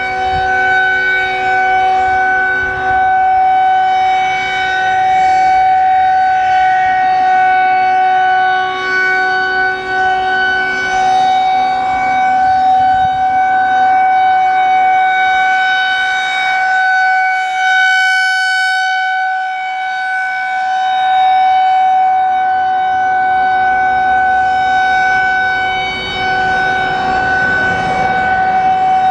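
Federal Signal 2001-130 rotating outdoor warning siren sounding a steady full-alert tone: one held pitch, slowly swelling and fading in loudness as the rotating siren head turns.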